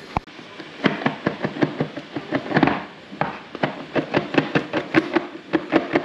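Cardboard product boxes being handled and opened on a stone countertop: a quick, irregular series of short taps and knocks, several a second.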